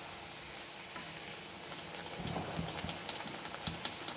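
Rose cookie batter frying on the mould in hot oil, a steady sizzle as the mould is shaken in the kadai. From about two seconds in there are light knocks and crackles.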